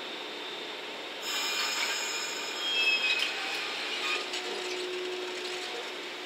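JR West 115-series electric multiple unit starting away from a station stop. About a second in there is a sudden hiss with metallic squeaks, loudest near the middle. From about four seconds in a steady hum sets in as the train begins to roll.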